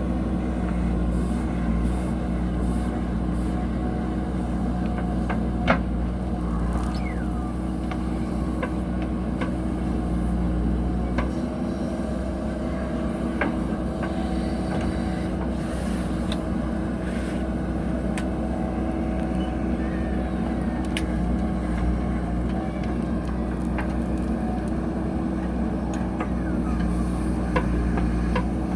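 JCB backhoe loader's diesel engine running steadily, with a few sharp clanks from the machine, the loudest about six seconds in.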